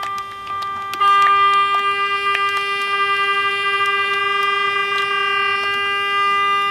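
A horn sounding in one long, unbroken blast on a single steady pitch with strong overtones, getting louder about a second in. Scattered sharp clicks sound over it.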